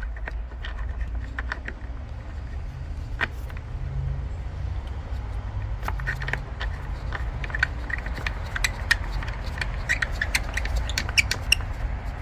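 Light metallic clicks and scrapes of bolts being threaded by hand into a pool pump's housing, coming faster in the second half, over a steady low rumble.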